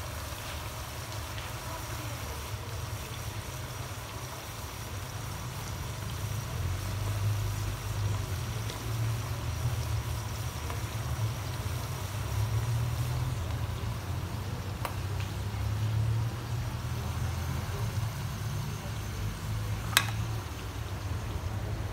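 Crinkle-cut fries deep-frying in hot oil in a wok, the oil bubbling and sizzling steadily over a low rumble. A single sharp click sounds near the end.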